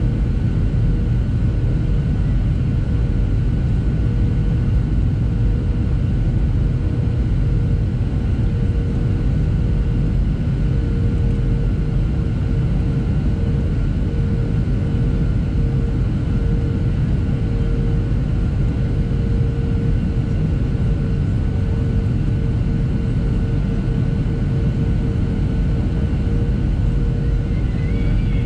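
Cabin noise of a Boeing 737-700 on approach: a steady rumble of airflow and its CFM56-7B engines, with a steady droning tone running through it.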